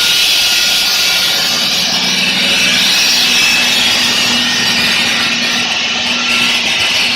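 Liomax 6x600 stone-cutting saw's diamond blade cutting into stone: a loud, steady high hiss over the motor's low hum.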